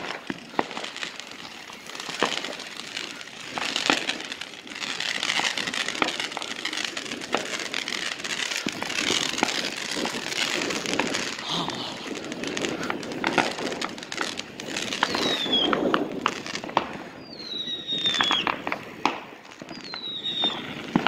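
Wind rushing over a phone microphone on a moving bicycle, with scattered firework pops and crackling throughout. In the last quarter come several short whistles that fall in pitch.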